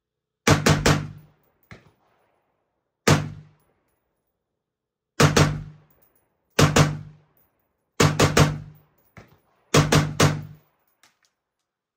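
Gunshots at a shooting range: quick strings of two and three shots and some single shots, each cut off sharply after a short tail.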